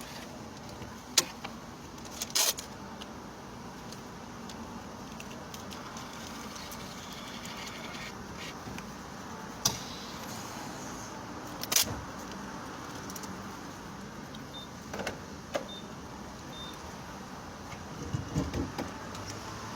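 Steady running noise of a car, heard from inside, broken by several sharp clicks and knocks.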